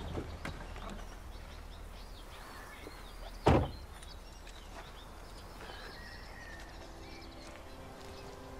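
A convertible's car door shutting with one solid thunk about three and a half seconds in, after a few light clicks; birds chirp faintly around it. Organ music starts softly near the end.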